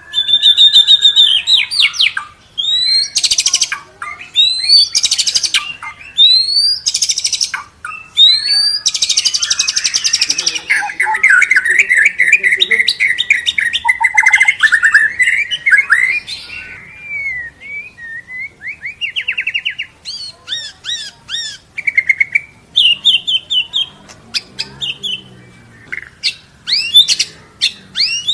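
White-rumped shama (murai batu) singing loudly and continuously, in varied phrases of clear whistles, fast rising sweeps, rapid trills and chattering chirps with short gaps between them. It is pouring out its 'isian', the songs it has learned by mimicry.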